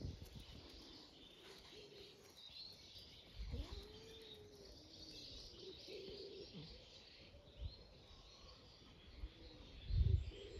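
Wild birds chirping in the background, with a few short, low calls that rise and fall in pitch. Several low thumps break in, the loudest about ten seconds in.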